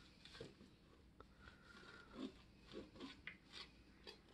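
Faint crunching and scraping as a knife saws through a baked cake, in short scattered strokes, the blade now and then scraping the metal platter beneath.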